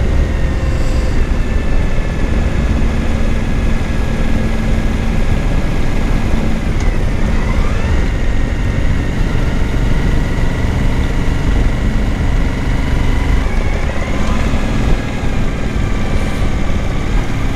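Suzuki V-Strom 1000's V-twin engine running as the motorcycle is ridden, with a steady engine note that dips and rises again twice, over heavy wind rush on the helmet-mounted microphone.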